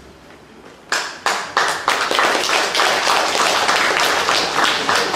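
A roomful of people starts applauding about a second in: a few separate claps at first, quickly growing into steady clapping.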